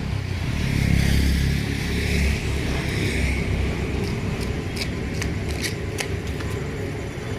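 A road vehicle going past: a low rumble that is loudest about a second in and then fades, with scattered short clicks later.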